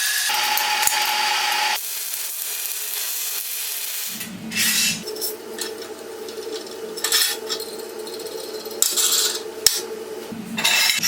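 A power tool running steadily while working material, with repeated short scraping bursts as it cuts or grinds; its pitch and sound change a couple of times.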